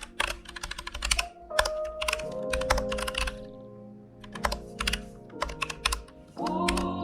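Typing on a computer keyboard, with keystrokes in quick runs separated by short pauses, over background music.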